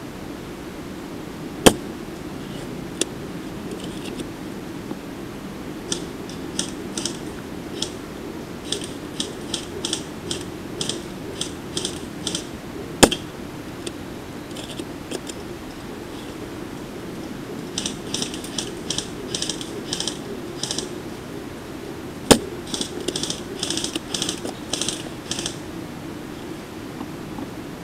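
An airsoft sniper rifle fires three sharp shots, roughly ten seconds apart, over a steady low hum. Between the shots come runs of rapid, high ticking.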